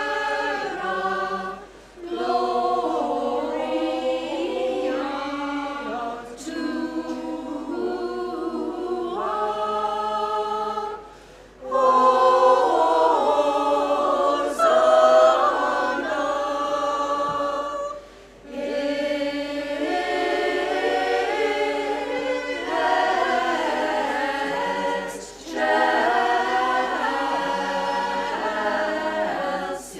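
Women's choir singing a cappella in several parts, with held chords in phrases broken by short pauses; the phrase about halfway through is the loudest.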